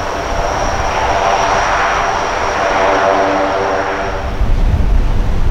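Four turboprop engines of a C-130 Hercules running as the aircraft taxis past: a steady propeller drone with a thin high whine over it. About four seconds in the whine fades and a heavier low rumble comes in.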